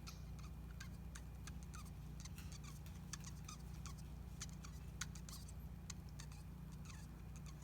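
Quaker parrot making faint, quick chirps, squeaks and clicks while mating against a hand, the soft vocalising of a hormonal bird in breeding mode, over a low steady hum.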